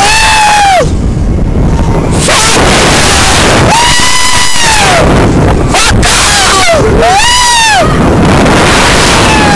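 Riders screaming on a fairground thrill ride: three long screams, each arching up and falling away in pitch, near the start, about four seconds in and about seven seconds in. Under them, a loud constant rush of wind on the microphone from the ride's motion.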